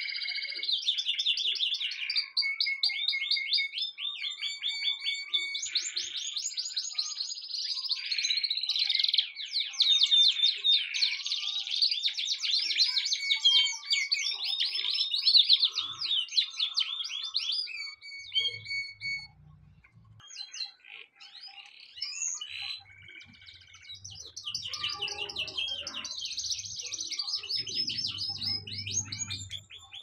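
Domestic canary singing: long trills of rapid repeated notes strung together into a continuous song. The song thins out for a few seconds past the middle, then resumes.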